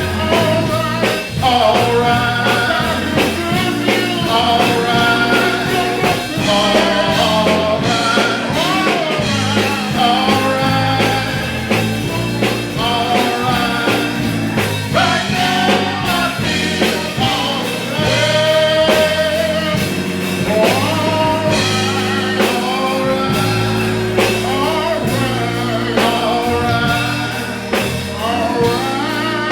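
Church song: singing over band accompaniment, with guitar, bass and drums in a steady groove.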